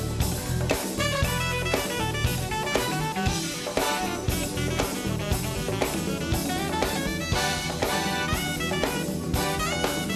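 Live studio band playing upbeat jazzy music, with a drum kit keeping a steady beat and brass.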